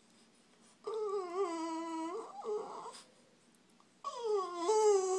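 French bulldog whining twice. About a second in comes a drawn-out whine that wavers in pitch for over a second and trails off into a breathy sound. A second whine near the end starts higher and slides down in pitch.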